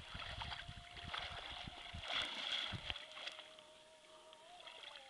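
Water splashing and sloshing around a man wading knee-deep, loudest about two seconds in, with wind buffeting the microphone until about three seconds in. A faint steady hum runs underneath.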